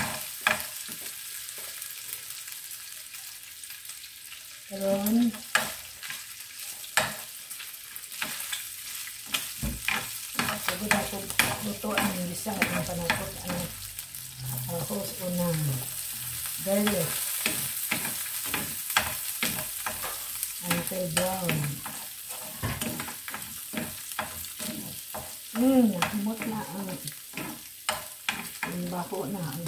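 Pork pieces sizzling in a hot frying pan over a gas flame, with the spatula scraping and clicking against the pan again and again as they are stirred.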